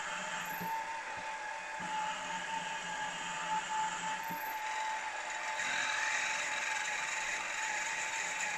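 Milling machine running with a steady motor whine while a long drill bit cuts down through a metal workpiece, with a hiss of cutting noise that grows a little louder about halfway through.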